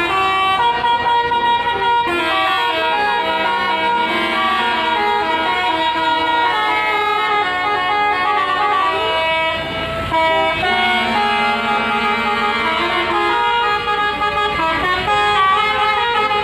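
Indonesian bus 'telolet' musical air horns playing quick runs of steady notes, several tunes overlapping almost without a break, with a brief dip about ten seconds in.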